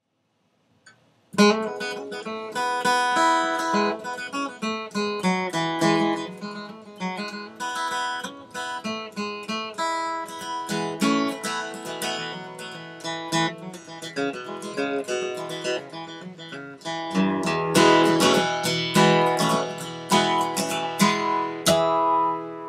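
Acoustic guitar music: plucked and strummed notes begin about a second in, then grow fuller and louder toward the end.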